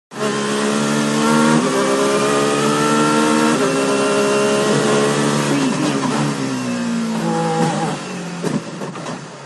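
Formula 1 car engine heard from the cockpit, accelerating hard through the gears: the pitch climbs and drops sharply at two upshifts, about a second and a half and three and a half seconds in. From about halfway it falls steadily in pitch as the car slows, and it runs quieter near the end.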